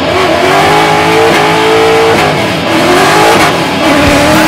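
Drift car's engine revving hard under acceleration, its pitch rising and falling several times, heard from inside the cabin.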